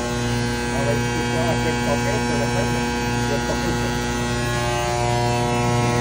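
Steady electrical hum from the energized control panel of a Trane 500-ton centrifugal chiller, its control transformer and contactors humming with several steady tones.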